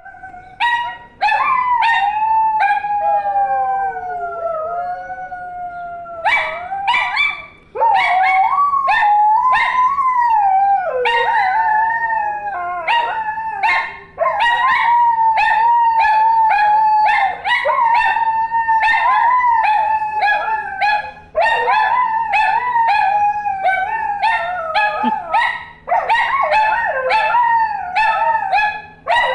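Siberian husky howling and yodelling in long calls whose pitch slides up and down, breaking off briefly every few seconds. Under the howls an alarm clock beeps quickly and evenly, about three beeps a second.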